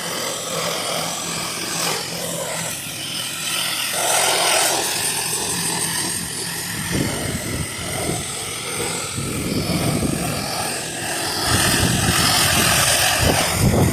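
Wind buffeting the microphone in irregular gusts, heavier from about halfway through, over a steady hiss of water.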